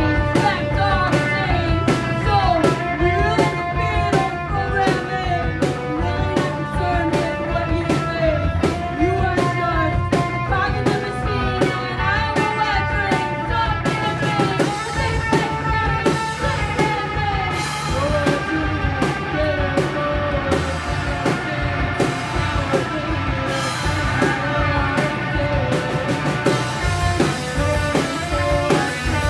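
Live rock band playing a song: a steady drum-kit beat, electric guitar, bass and singing.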